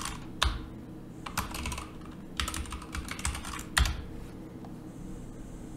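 Scattered clicking of a computer keyboard and mouse: a handful of separate keystrokes and clicks, some in quick pairs, over a low steady hum.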